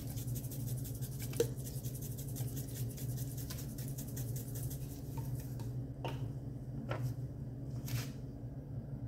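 Spice shaker shaken fast over raw chicken, a quick rattling patter of seasoning that stops about five and a half seconds in. Then three separate clicks about a second apart, over a steady low hum.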